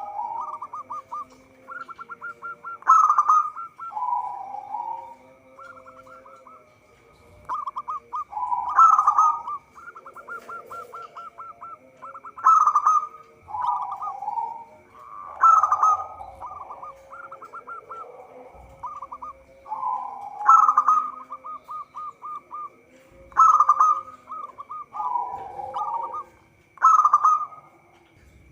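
Zebra dove singing: phrases repeated every two to three seconds, each a loud opening coo followed by a fast run of short staccato notes.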